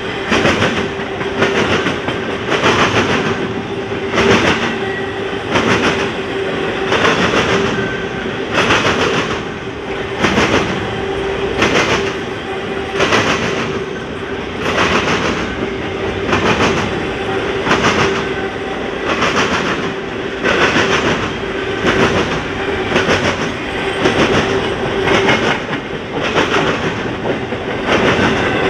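A double-stack intermodal freight train rolling past, its container wellcars' wheels clacking over the track in a steady rhythm about once a second, with a steady hum underneath.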